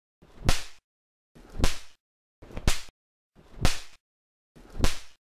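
Snappers (bang snaps) thrown down one after another: five sharp snaps about a second apart. Each snap comes from the silver fulminate–coated sand grains being crushed on impact, so that friction sets off the charge and it bursts through the tissue-paper wrapper.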